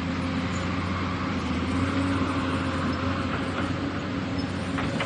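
Excavator's diesel engine running steadily at raised revs, with a faint thin higher tone above it and a couple of light clicks near the end.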